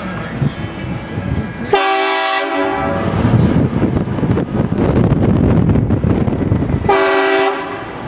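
Truck-mounted train horn on a Ford F-250 Super Duty pickup, blasting twice as a chord of several steady tones: about a second long just under two seconds in, then a shorter blast near the end. The moving truck's steady engine and road noise runs between the blasts.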